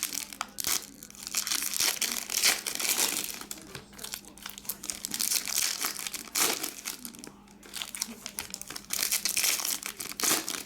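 Trading card pack wrappers crinkling and tearing as packs are opened, in repeated irregular bursts of rustling.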